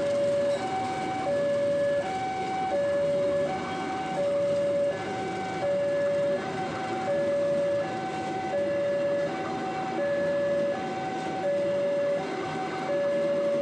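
An electronic level-crossing warning alarm sounding two alternating notes, low then high, each lasting about two thirds of a second and repeating steadily, over the noise of a passenger train's coaches rolling past.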